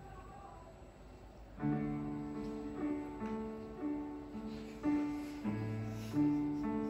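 Casio digital keyboard playing piano chords as a song's introduction, starting about a second and a half in after a short quiet pause; a new chord is struck roughly every half second to a second and held.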